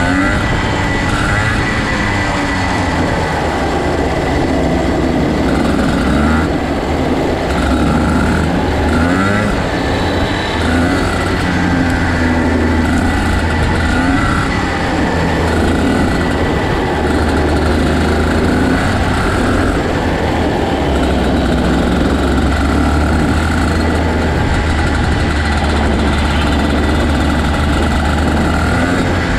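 Several dirt kart engines racing, their pitch rising and falling over and over as they rev up and back off.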